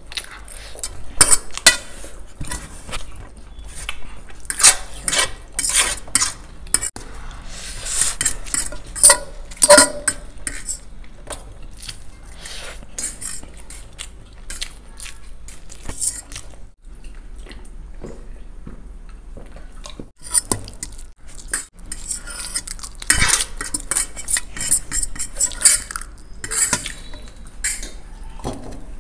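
Metal forks clinking and scraping against large stainless steel plates as noodles are gathered up, an irregular run of sharp clicks. It is busy at first, sparser through the middle, then busy again near the end.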